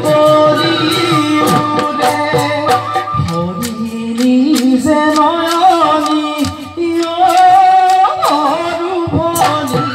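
Assamese Bihu song accompanying the dance: a sung melody over a steady drum beat and folk instruments.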